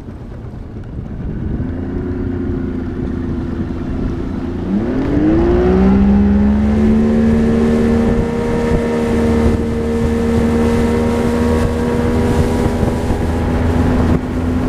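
Bass boat's outboard motor accelerating. It grows louder and climbs in pitch over the first few seconds, with a sharp rise about five seconds in, then holds a steady pitch as the boat runs at speed.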